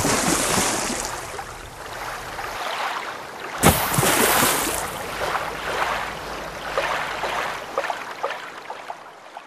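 Rushing, splashing water noise, like water sloshing around a small boat, rising abruptly to a louder surge about three and a half seconds in.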